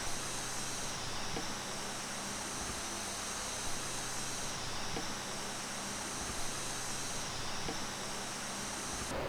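Steady outdoor background noise, with a high-pitched hiss that swells and fades every two seconds or so and a few faint ticks.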